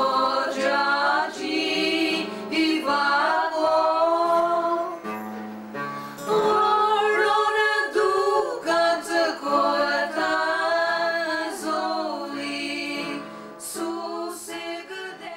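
A group of voices singing in harmony, choir-style, holding long notes over a low sustained part. The singing grows quieter toward the end.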